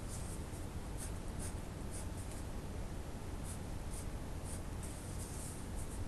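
Pen nib scratching on paper in short, irregular strokes as tree-canopy outlines are drawn, over a steady low hum.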